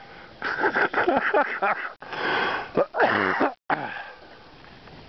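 A person's wheezing, breathy vocal sounds in several spells, dying down after about three and a half seconds.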